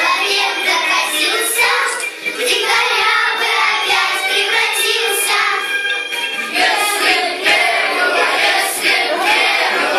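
A group of young girls singing a song together in chorus.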